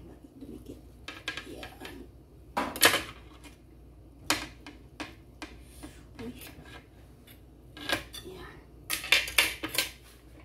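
Kitchen knife clinking and scraping against a ceramic platter as a roast chicken is carved, a string of sharp clinks with the loudest about three seconds in and a quick cluster near the end.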